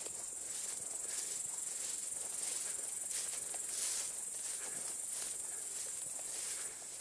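Steady high-pitched chirring of insects, with footsteps brushing through grass and undergrowth at a steady walking pace.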